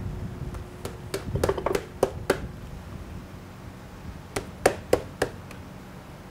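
Small metal parts clinking as they are picked through by hand on a wooden bench: a quick run of sharp clicks, then three louder ones a couple of seconds later. A faint steady hum runs underneath.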